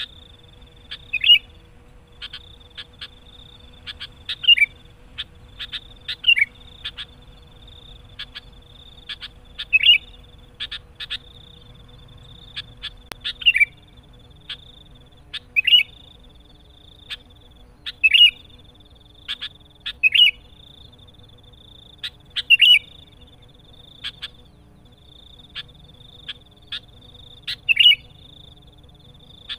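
Sooty-headed bulbul (kutilang) calling again and again: clusters of sharp chips, each followed by a quick falling note, about every two seconds, over a steady high buzz.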